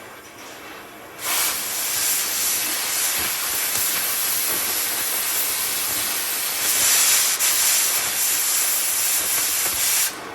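Oxy-fuel cutting torch hissing as the cutting oxygen blows through the steel frame, starting about a second in, with a brief stop and restart near the end. The molten slag keeps fusing back into the cut instead of blowing clear.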